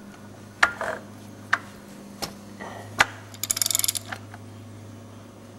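Ratchet wrench clicking as the Kawasaki KLR650's engine is turned over slowly by hand: a few separate sharp clicks, then a quick run of ratchet clicks about three and a half seconds in.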